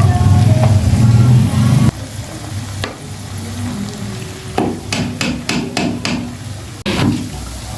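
A loud low hum cuts off suddenly about two seconds in. Then a spoon knocks and scrapes in a cooking pot, with a quick run of about six knocks just past the middle.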